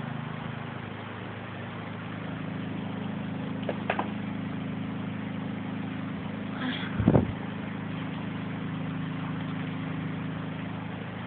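Heavy rain pouring steadily, with a steady low mechanical hum underneath. There are a couple of light clicks about four seconds in and a louder knock about seven seconds in.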